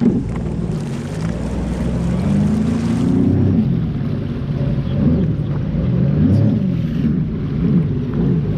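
Personal watercraft engine run at low speed, the throttle worked up and down several times so the engine note rises and falls, as the craft is manoeuvred through shallows where it has just run onto something. Water swishes along the hull, and there is a knock right at the start.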